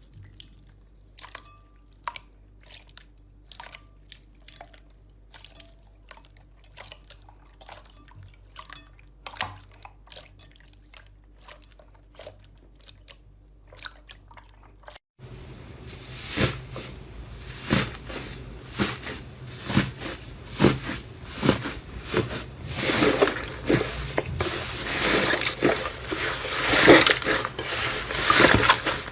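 Slime being squeezed and worked by hand: sparse, quiet sticky clicks and pops, then, after a cut about halfway through, a louder and much denser run of wet clicking and crackling.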